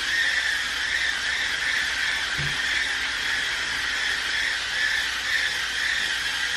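Clorox Power Scrubber, a battery-powered spinning brush, whirring steadily as it scrubs floor grout wet with stain remover; it cuts off suddenly at the end.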